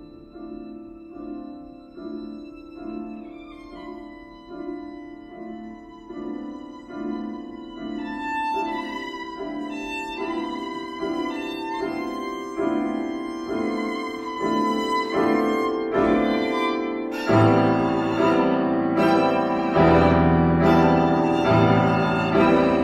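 Live violin and grand piano duo playing classical music: the piano repeats chords in an even pulse under the violin's held notes. The music swells steadily, and deep bass notes come in about two-thirds of the way through, so that it grows loud.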